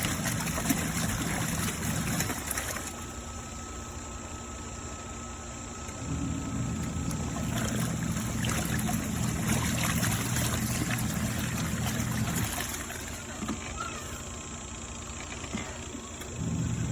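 Compact twin-tub washing machine's wash motor running in spells with pauses between, over water churning in the tub. It runs briefly, stops for a few seconds, runs again for about six seconds, stops, and starts again near the end.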